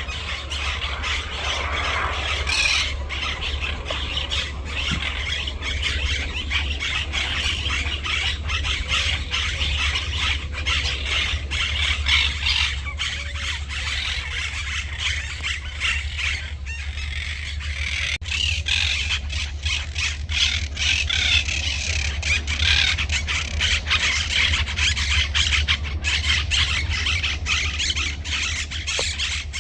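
Many small birds chirping and chattering together in a dense, continuous chorus of rapid high calls, over a steady low electrical hum.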